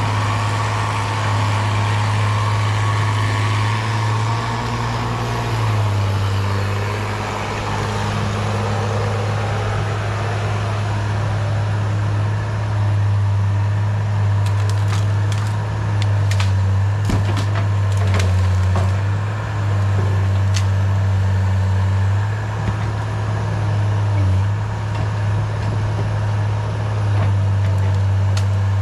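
Cat 318B excavator's diesel engine running and changing load, with wood cracking and splintering as the machine breaks through brush or trees. The sharp cracks bunch up past the middle and again near the end.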